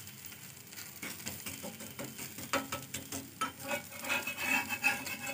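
Steel spatula scraping and clinking against a hot iron tawa as it works over and around a thin rice-flour crepe, with a light sizzle of the batter and oil cooking underneath. The scrapes and clinks grow louder and more frequent in the second half.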